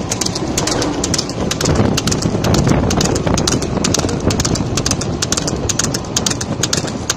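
Hoofbeats of a racing water buffalo pulling a buggy: a fast, uneven clatter of sharp strikes, several a second, over a steady low rumble of wind and a following vehicle.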